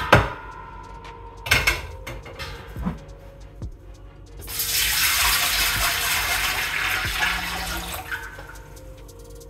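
A couple of clanks as the lid comes off a stainless steel stock pot, then water poured from a saucepan into the stock pot for about four seconds, tailing off near the end.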